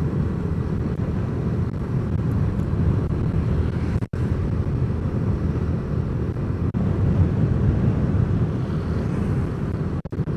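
Steady low rumble of a vehicle travelling along a road: engine and tyre noise. The sound cuts out for an instant about four seconds in and again near seven seconds.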